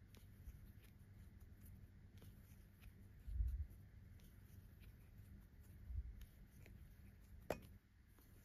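Faint rubbing and light clicks of a crochet hook working yarn through single crochet stitches, with two soft low thumps about three and a half and six seconds in and a sharper click near the end.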